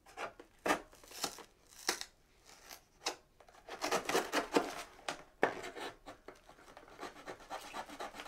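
A knife blade prying along the glued end flap of a cardboard soda 12-pack, the paperboard scraping and tearing in short, irregular strokes as the glue seam is peeled apart.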